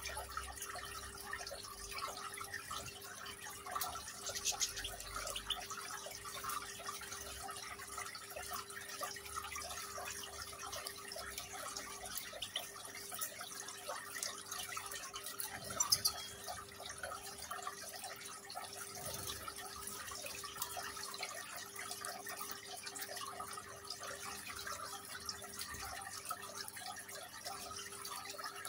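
Small decorative rock fountain running, water trickling and dripping steadily over a faint steady hum. There are a few brief high chirps about four seconds in, and a louder one about sixteen seconds in, from the small birds.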